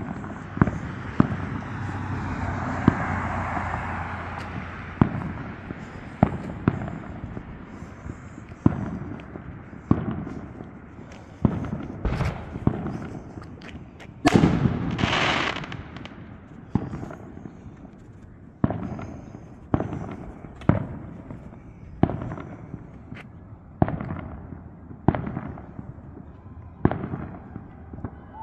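Repeated sharp, echoing bangs from an unseen source, about one a second and fairly evenly spaced. About halfway through, a louder rush of noise lasts a couple of seconds.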